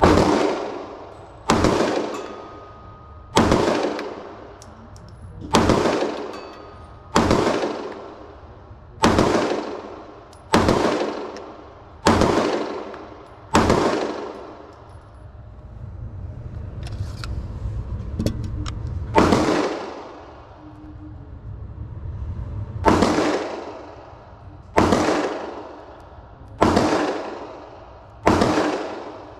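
Gunshots, one every one and a half to two seconds, each ringing on for about a second. There are about fourteen shots in all, with a pause of a few seconds after the ninth.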